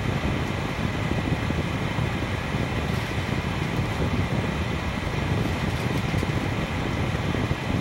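Stainless steel pot of ribs at a rolling boil: a steady bubbling rumble.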